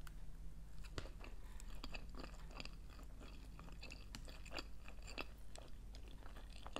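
Close-up chewing of sushi rolls: faint, irregular wet clicks and smacks of a mouth working on food.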